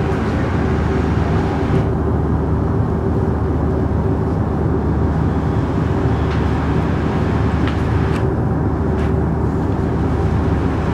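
Diesel engines of trains standing at a station platform, running at idle: a steady low rumble with a held tone in it, and a few faint clicks in the second half.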